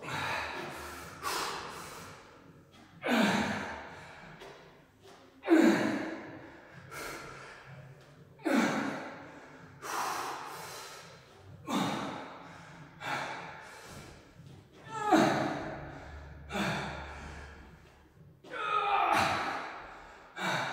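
A man breathing hard through squat reps with a dumbbell: loud, forceful exhalations come about once every second and a half, with quieter in-breaths between them.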